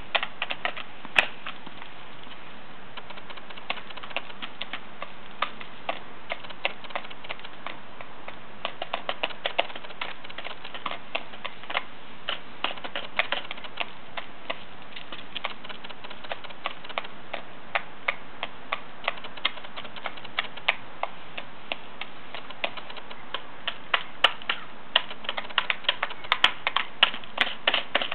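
Wild turkeys pecking feed out of small plastic tubs: a rapid, irregular clatter of beak taps on plastic, growing busier near the end.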